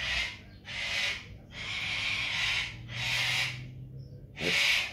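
Pet cockatoo screeching: a run of harsh screeches, about one a second.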